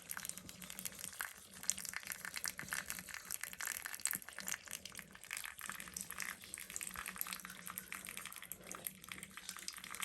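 Water running from a tap and splashing steadily, with a faint steady hum underneath.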